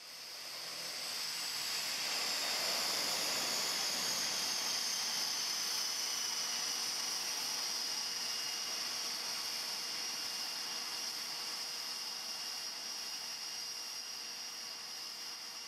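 Aircraft turbine whine over a rushing hiss. The high whine falls slowly in pitch over the first several seconds, then holds steady while the whole sound gradually fades.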